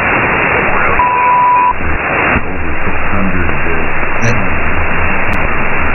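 Shortwave radio static from an RTL-SDR receiver demodulating lower sideband while it is tuned across 6.07 MHz in the 49-metre broadcast band: a dense, steady hiss with faint, garbled voice under it. About a second in, a steady whistle sounds for under a second.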